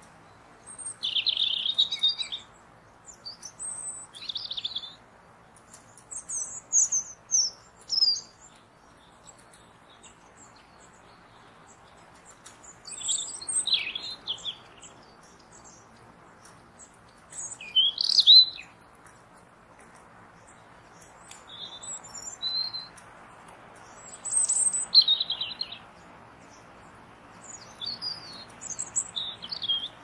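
Small woodland songbirds calling: clusters of short, high chirps and twitters come every few seconds, the loudest about two-thirds of the way through. A faint, steady rushing noise lies beneath the calls.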